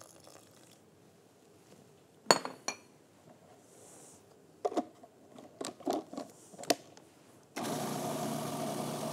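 A sharp clink, then the clicks of a food processor's plastic lid being set on and locked, and about seven and a half seconds in the food processor's motor starts and runs steadily with a constant hum, grinding soaked almonds and olives with a little added water into a paste.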